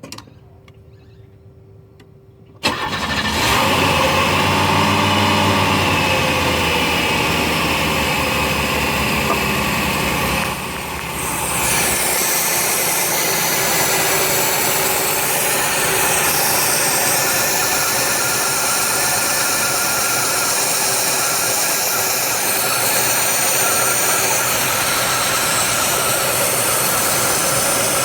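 1990 Oldsmobile Cutlass Supreme engine starting about two and a half seconds in, its revs rising and settling, then running at a steady idle with a high-pitched whine over it. The engine has a vacuum leak.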